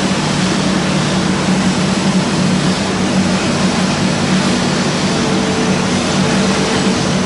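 Wood pellet production line running: a steady, loud industrial din of electric motors and blowers, with a constant low hum.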